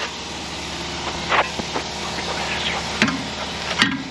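Wrench and tools clinking against a car's front suspension, with a few sharp metallic knocks, over a steady mechanical hum.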